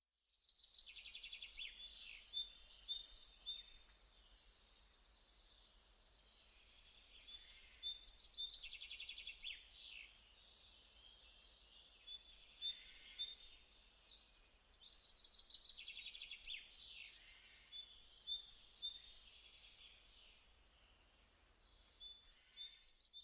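Small birds chirping and singing fast, high-pitched trills, in bouts of a few seconds with short lulls between them.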